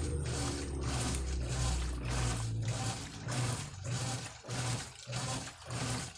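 Brastemp Eletrônica top-load washing machine agitating a load: the motor hums while water and clothes slosh in regular back-and-forth strokes, with the agitator turning both ways.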